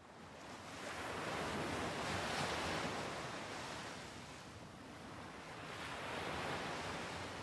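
Ocean surf: waves washing onto a shore, fading in and swelling twice, about four seconds apart.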